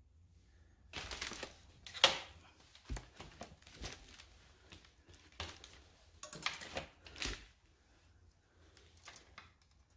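Irregular clicks, knocks and rattles of a minivelo bicycle's rear wheel and rack being handled and fitted back together, with the sharpest knock about two seconds in.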